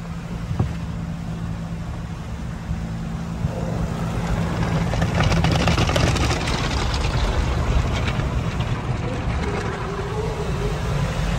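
Automatic tunnel car wash heard from inside the car: a steady low rumble of the wash machinery, with a single knock about half a second in. From about four seconds in, water spray hitting the windshield and roof grows louder, loudest a few seconds later.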